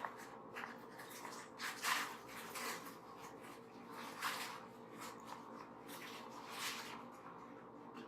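A brush sweeping over a microphone in irregular strokes, the loudest about two seconds in and others near four and six and a half seconds.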